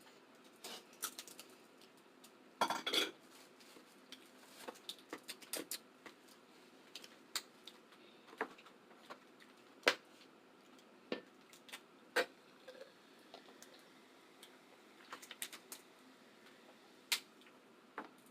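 Eating a seafood boil by hand: scattered, irregular clicks, taps and cracks of shells and utensils, with a denser burst of crackling about three seconds in.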